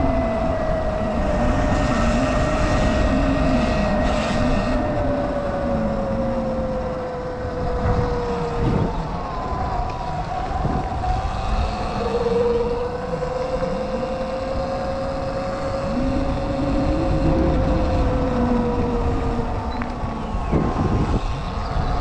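Sur-Ron X electric dirt bike's motor whining while riding, with wind rumble on the microphone. The whine slowly drops in pitch, breaks off about nine seconds in, then comes back about three seconds later and rises again.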